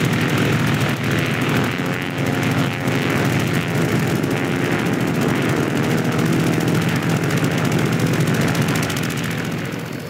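Film sound effect of a swarm of grasshoppers in flight: many wings whirring together in a dense, rapid, propeller-like flutter that eases off slightly near the end.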